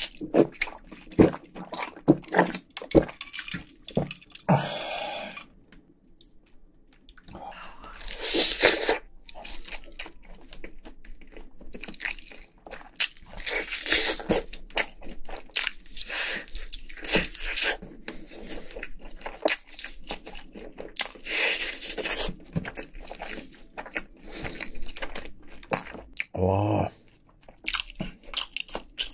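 Close-miked eating of fried chicken: repeated crunchy bites and chewing. It opens with a few swallows of cola.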